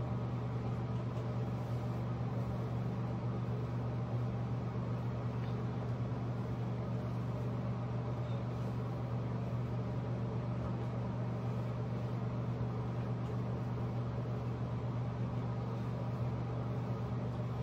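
A steady low machine hum, like a running fan or motor.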